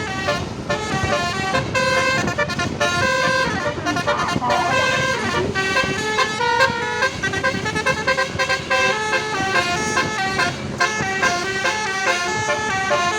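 Bus 'telolet basuri' melody horns playing a quick tune, the notes stepping from pitch to pitch several times a second without a break.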